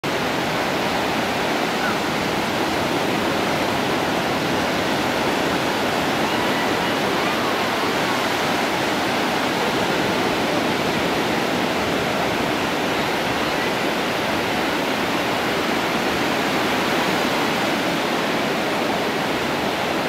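Ocean surf breaking on the shore, a steady rushing noise that does not let up.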